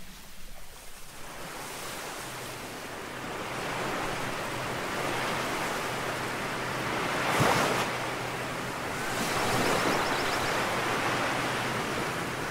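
Ocean surf: waves breaking and washing up a sandy beach. The sound fades in over the first couple of seconds and swells to a louder crash about seven and a half seconds in.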